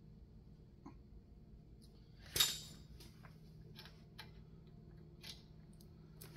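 Small metal parts being handled while a spindle washer is wiped clean: a few faint ticks and one sharp metallic clink about two seconds in, over a faint steady hum.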